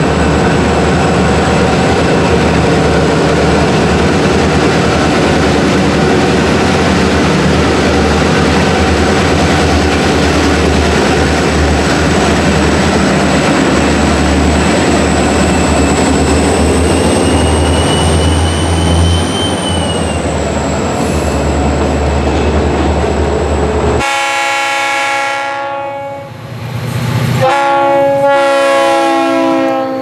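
EMD diesel freight locomotives passing close by, their two-stroke engines running hard over the steady rumble and clatter of the train. About 24 seconds in, this gives way to a locomotive's multi-chime air horn sounding two long blasts.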